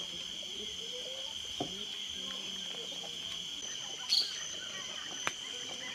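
Steady high-pitched insect chorus, with a few brief clicks; the loudest click comes about four seconds in.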